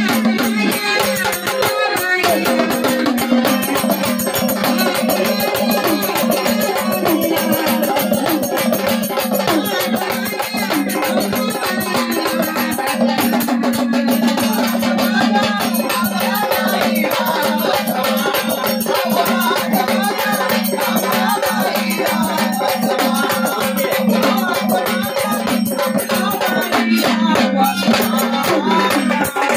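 Live Marathi jagran devotional folk music: a fast, steady rattling percussion and drums over a sustained held drone, with a wavering melody line above.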